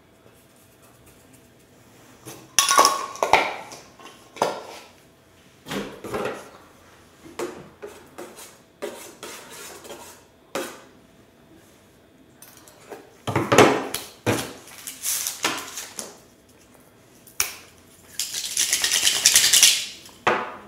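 A metal spoon clinking and scraping against the inside of a metal soup pot while egg soup is stirred, in a run of irregular clinks and short scrapes. Near the end comes a longer rasping noise of about two seconds.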